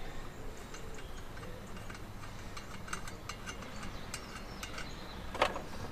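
Small metallic clicks and ticks of brass fittings being handled and turned on a propane cylinder's valve, with one louder click near the end.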